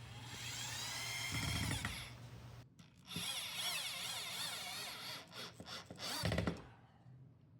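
Power drill driving wood screws through a board into wall studs, in two runs of a few seconds each. The motor's whine rises and falls in pitch as the screws bite and seat.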